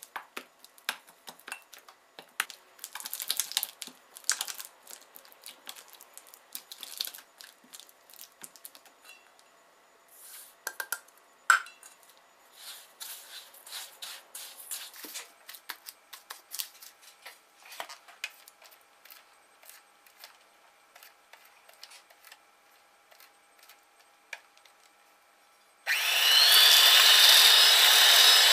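A spatula scrapes and presses butter against a stainless steel bowl in irregular short strokes, softening it. About two and a half seconds before the end, an electric hand mixer starts up suddenly on high speed, beating the butter with a loud, steady whirr.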